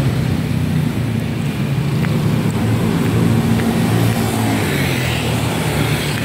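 Steady rumble of road traffic, with passing cars and motorcycles.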